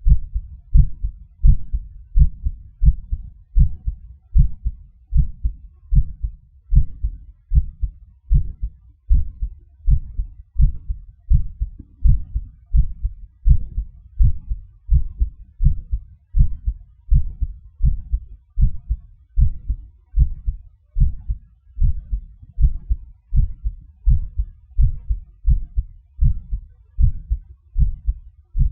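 Heartbeat: steady lub-dub heart sounds, a pair of deep thumps about once a second, running evenly throughout.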